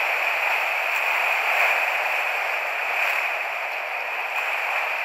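Steady rush of whitewater rapids churning around a kayak, an even hiss with no separate splashes or knocks standing out.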